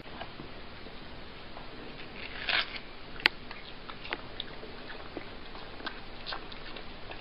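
A cat biting and chewing a slice of watermelon: scattered small wet crunches and ticks, with a louder crunch about two and a half seconds in and a sharp click just after.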